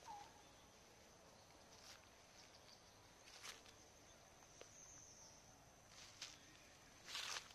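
Near silence with a faint, steady, high insect drone, broken by a few soft rustles and clicks, the loudest near the end.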